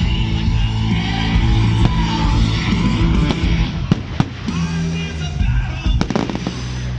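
Loud rock music with guitar, punctuated by firework bangs: single cracks about two and four seconds in, and a quick cluster of them about six seconds in.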